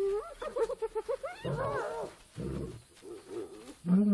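Hyenas calling over a kill in quick, pitched, rising-and-falling giggles and whoops. Near the end a male lion begins a deep, loud roar that scares off the scavengers.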